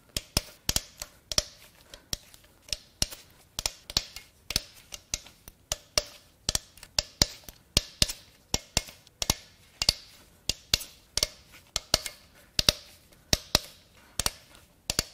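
Ratchet wrench clicking in short, regular back-strokes as it loosens the cam cap bolts on a 4.6L DOHC V8's aluminium cylinder head, about three sharp clicks a second.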